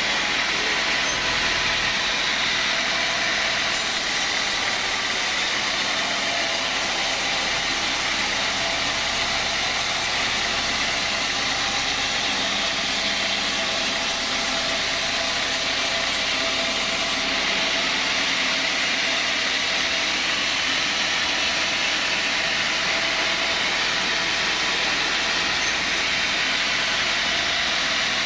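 Sawmill saw machinery running steadily, an even, unbroken mechanical noise.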